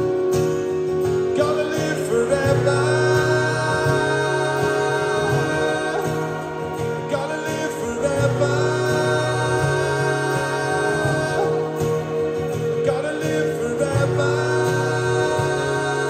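Live rock band playing a slow song, with guitar under long held vocal notes in three phrases about six seconds apart.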